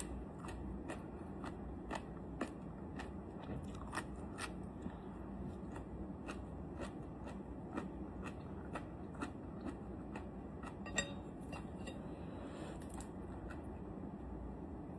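Crunchy jellyfish head being chewed: a run of sharp, crisp crunches at an uneven pace, a couple a second, thinning out near the end.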